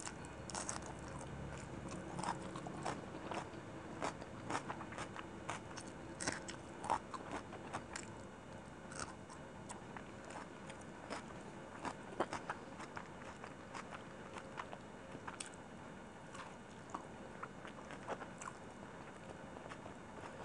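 Close-miked crunching and chewing of a raw onion slice: many sharp crisp crunches, densest in the first eight seconds or so, then thinning to scattered crunches.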